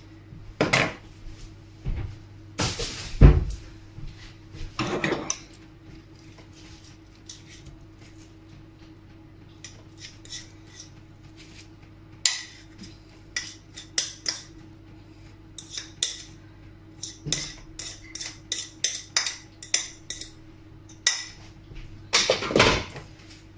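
Cutlery clinking and scraping against a plate as soft horseradish butter is worked and shaped, in scattered short knocks with one louder knock about three seconds in and a busier run of small clicks later on. A low steady hum runs underneath.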